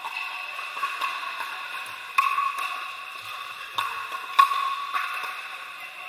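Pickleball paddles striking a hard plastic ball in a rally: several sharp pops at irregular intervals, the loudest about four and a half seconds in. Underneath is a steady din of play from the neighbouring courts.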